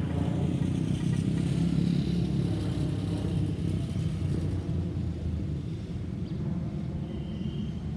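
Airbus A321-231 airliner's twin IAE V2533 turbofan engines making a low jet rumble as it flies over and moves away. The rumble is loudest in the first couple of seconds, then slowly fades.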